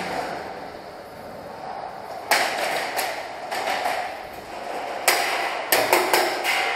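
Single shots from airsoft guns: a string of sharp, irregularly spaced cracks starting about two seconds in, over a steady hiss.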